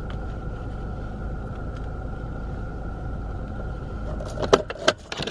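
Steady low hum of a car idling, heard from inside the cabin, with a faint steady whine. Near the end come a few sharp clicks and knocks, after which the hum drops away.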